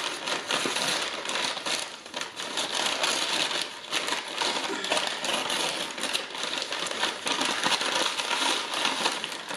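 Paper fast-food bag rustling and crinkling continuously as hands open it and rummage inside, with many small crackles.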